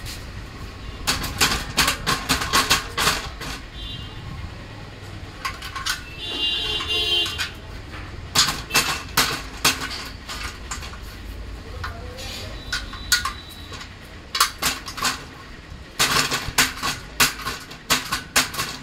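Metallic clanks and rattles from a steel treadle sewing-machine stand being pressed on and handled, in several bursts of quick knocks with quieter gaps between.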